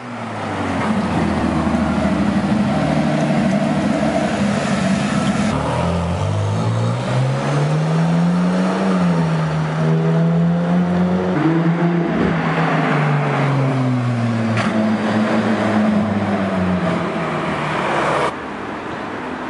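Ferrari supercar engine revving on the street, its pitch climbing and falling several times as the car pulls away. Near the end the sound drops suddenly to a quieter level.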